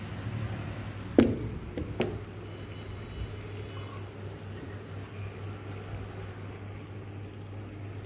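Homemade razor-blade water heater running on mains power in a glass of water, giving a steady low hum with a faint hiss as the water bubbles. Two sharp knocks come about one and two seconds in.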